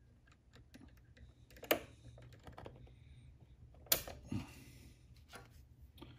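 Light clicks and taps from hands working small parts and tools on an RC car's gear and motor assembly, with two sharper clicks about two and four seconds in.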